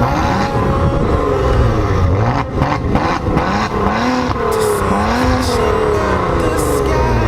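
Maserati Levante engine revving, its pitch rising and falling repeatedly.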